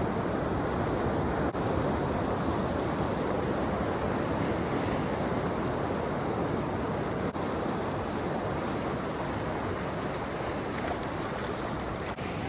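Steady wash of waves and moving seawater along the shore, with some wind on the microphone.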